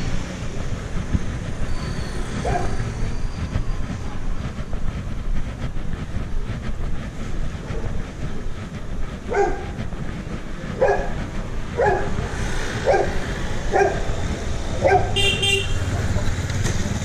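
Street traffic on a narrow city road: a steady low rumble of passing vehicles and motorcycles. In the last third, six short pitched sounds about a second apart, then a brief high ringing tone near the end.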